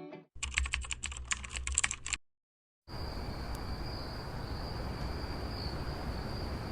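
Rapid, irregular clicking for about two seconds, then a short total dropout, followed by a steady faint hiss with a thin high whine.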